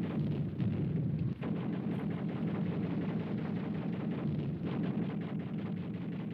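Combat gunfire on a wartime film soundtrack: a dense run of reports over a continuous low rumble, with a brief break about a second and a half in.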